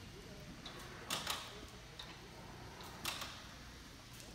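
Still Wagner EGV 12 electric pallet stacker being driven by its tiller: a faint low hum with a few sharp mechanical clicks, a quick pair about a second in and another about three seconds in.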